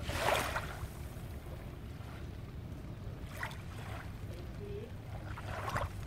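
Small, gentle waves lapping on a sandy beach, with three soft splashes, one early, one midway and one near the end, over a steady low rumble.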